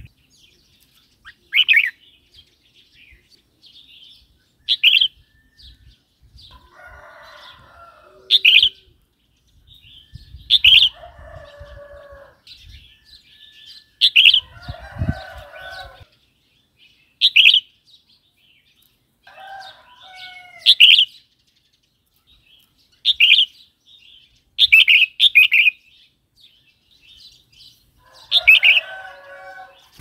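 Caged red-whiskered bulbul singing short, loud, whistled phrases, one every two to three seconds, with softer warbling between them. Now and then its wings flutter as it moves about the cage.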